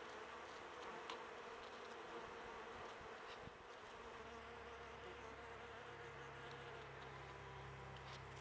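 Honeybees buzzing as they fly around a sap flow on tree bark: a faint, steady drone of wingbeats that wavers a little as bees come and go.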